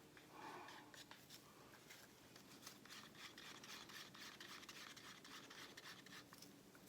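Near silence with faint, irregular light clicks and rustles of handling, thickest around the middle.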